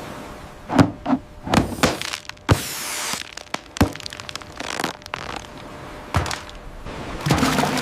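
A run of irregular knocks and thuds, with a short scraping noise about two and a half seconds in.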